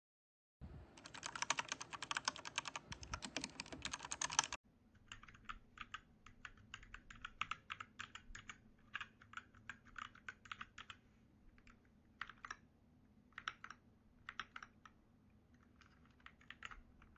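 Typing on an RK61 60% mechanical keyboard. For the first few seconds there is a fast, dense clatter of keystrokes, which cuts off abruptly. Then come quieter, slower runs of separate key clicks with short pauses between them.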